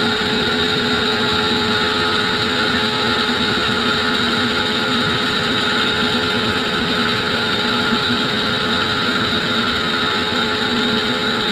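Sawmill saw running through acacia wood, a steady mechanical whine with several held tones over a dense hiss, unchanging throughout.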